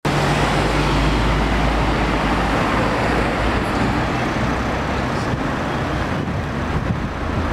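City street traffic noise: a steady rush of passing vehicles with a deep engine rumble, strongest for the first two or three seconds and then easing.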